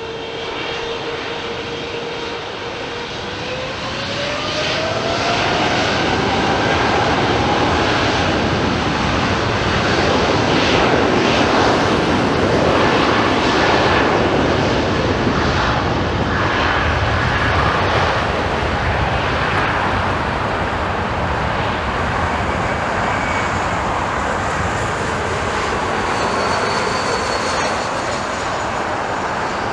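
Heavy jet airliner's engines spooling up for takeoff: a steady whine rises in pitch about three seconds in, then a loud engine roar builds and holds.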